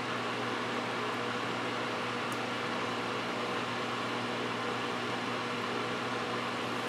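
Steady whirring hiss of a small electric fan running, with a constant low electrical hum underneath.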